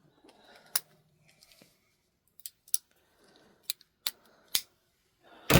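Sharp metal clicks of folding multitools being handled and worked, about seven in all, irregularly spaced, the loudest near the end.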